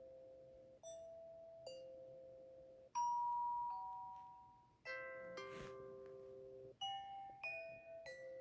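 Vivint doorbell's standard chime tones played one after another: a high-low two-note ding-dong, a higher two-note chime about three seconds in, a fuller many-note chime about five seconds in, and a short descending run of notes near the end.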